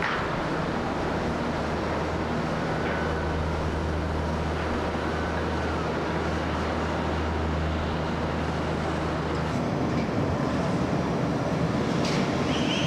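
Steady low mechanical hum over a rumbling noise, which shifts and grows slightly louder about nine or ten seconds in, with a few faint clicks.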